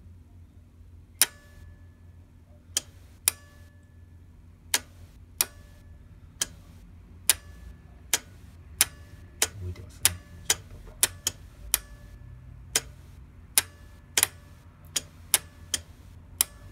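About two dozen sharp, irregular clicks, coming closer together in the second half, some with a brief metallic ring, over a steady low hum.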